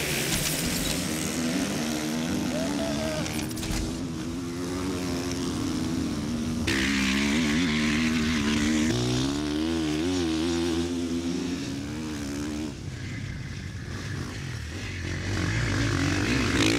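Motocross bike engines revving hard, the pitch rising and dropping as the riders accelerate and shift. The sound changes abruptly a few times, and is quieter for a while near the end before picking up again.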